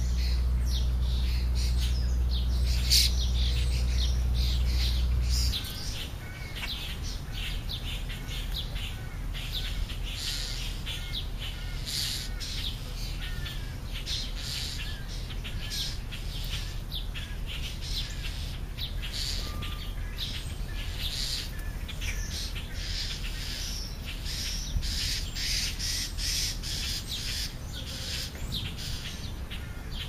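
Many birds chirping and calling, short high calls repeated over and over. For the first five seconds or so a loud low steady rumble runs under them and then cuts off suddenly.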